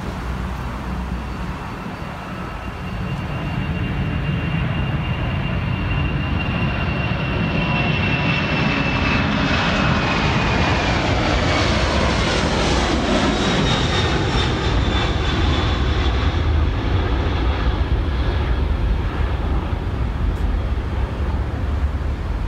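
Eva Air Cargo Boeing 747-400 freighter's four jet engines at takeoff power as it climbs out and passes overhead: a loud roar that builds over the first few seconds, with a high whine that falls in pitch as the aircraft goes over about halfway through, then a steady rumble as it climbs away.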